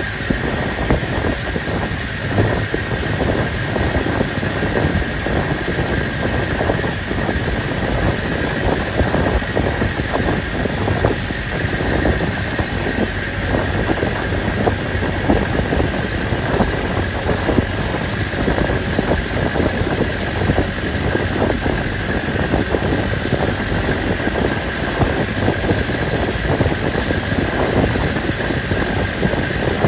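Long-tail boat engine running steadily, its dense rapid firing underneath a steady high whine.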